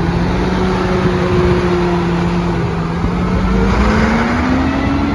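International former school bus (chicken bus) engine running as the bus moves close by. The engine note holds steady, then rises over the last second or so as the bus accelerates away.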